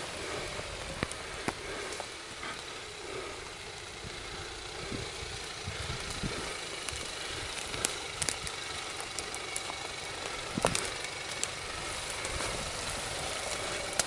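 Jeep Wrangler Rubicon JL's 2.2-litre diesel engine running steadily at low revs as the Jeep crawls slowly over rough forest ground, with a few sharp clicks scattered through it.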